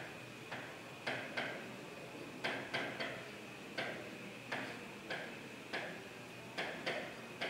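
Marker pen writing on a whiteboard: a series of short, irregularly spaced taps and ticks as the pen strikes and lifts off the board stroke by stroke.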